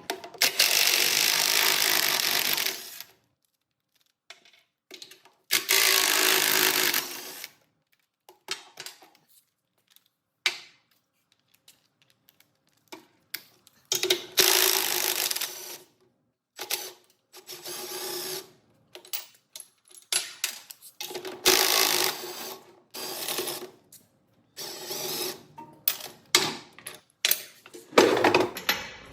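Handheld power drill running in about eight bursts of one to three seconds each, with short pauses between.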